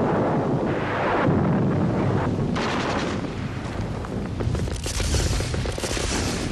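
Battle sounds of gunfire and explosions, heavy blasts at first, then rapid crackling shots in the second half.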